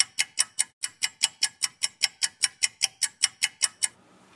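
Fast clock-ticking sound effect, about five even ticks a second, marking time passing; it stops shortly before the end, leaving faint room tone.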